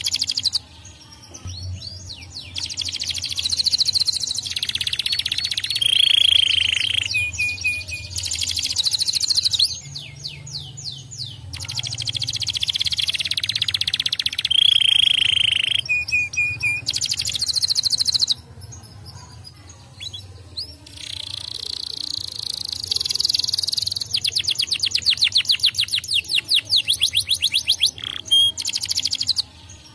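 Domestic canary singing long song phrases of rapid trills and held whistled notes, with short pauses between phrases.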